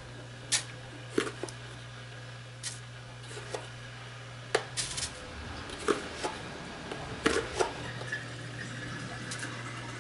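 A metal spoon scooping ground coffee in a plastic tub, clicking and scraping against its sides at irregular moments, over a steady low hum.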